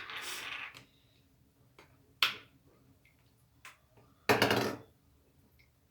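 Handling of a glue bottle and bowl while glue is poured: a click and a short hiss at the start, a sharp knock about two seconds in, and a louder half-second rustle near the end.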